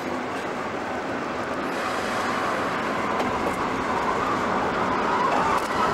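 BR EM2 (Class 77) electric locomotive 27000 rolling slowly along the track towards the listener: a steady rolling noise of wheels and running gear that grows gradually louder as it nears, with a few faint clicks.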